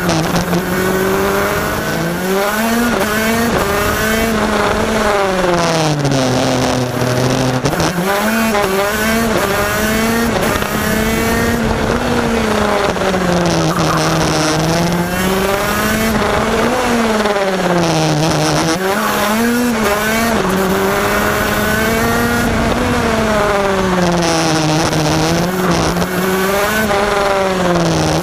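Onboard sound of a 125cc two-stroke KZ shifter-kart engine at full race pace. Its pitch climbs in steps as it pulls through the gears on the straights, then drops sharply into the corners, over and over.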